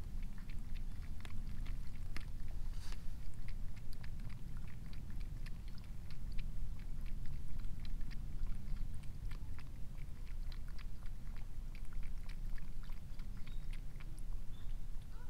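A cat lapping water from a tub: a quick, irregular run of small wet clicks, about three or four a second, over a low steady rumble.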